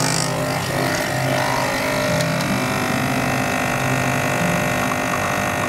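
Nespresso capsule espresso machine brewing a shot, its pump buzzing steadily and loudly.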